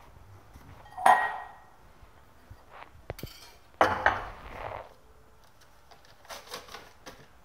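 Metal kitchenware clattering: two loud clanks, about a second and nearly four seconds in, each ringing briefly, then a few lighter clinks near the end.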